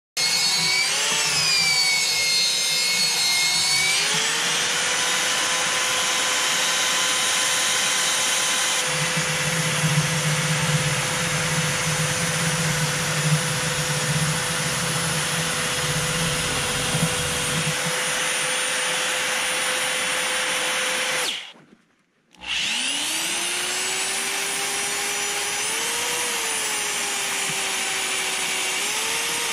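Corded electric drill driving a paddle mixer through a bucket of thick grease, stirring back in liquid that had separated out. The motor runs steadily, stops briefly about 21 seconds in, then spins up again and runs on.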